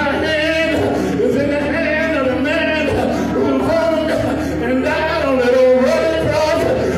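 A man's voice singing in long held, wavering notes over steady sustained keyboard chords.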